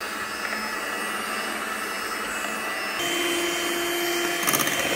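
An electric hand mixer whirs steadily as its wire beaters whip cream in a glass bowl. About three seconds in, the motor's tone changes to a steadier, higher whine, and near the end there is a brief rattle.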